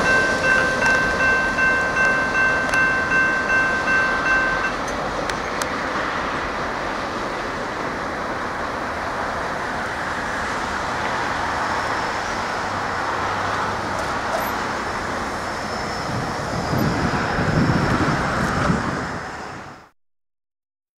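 Railroad grade-crossing bell ringing about twice a second, stopping about five seconds in as the last cars of a freight train clear the crossing. The train's rolling rumble carries on after it, with a road vehicle driving across near the end before the sound cuts off.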